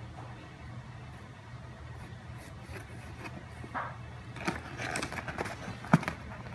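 Cardboard box scraping and rustling with crayons as a toddler sitting in it moves about, growing busier in the second half, with one sharp tap about six seconds in that is the loudest sound. A steady low hum runs underneath.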